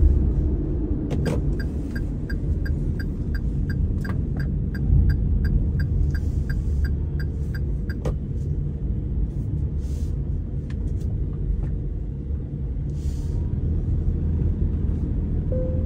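Moving vehicle's steady low road and engine rumble, with a turn-signal indicator clicking about three times a second through a turn for roughly seven seconds, then stopping.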